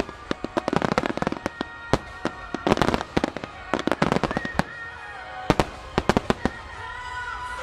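A fireworks barrage: rapid clusters of sharp bangs from aerial shells bursting and launching, over a music soundtrack. The bangs thin out near the end, leaving the music.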